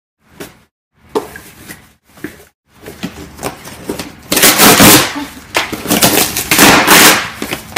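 Packaging being handled and torn open: a few light rustles, then from about four seconds in a loud, dense crackling and crinkling that carries on to the end.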